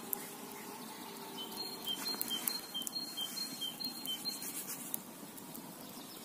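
Small campfire crackling with scattered sharp pops. From about a second and a half in until near five seconds, a songbird sings a quick repeated two-note phrase, alternating a higher and a lower note.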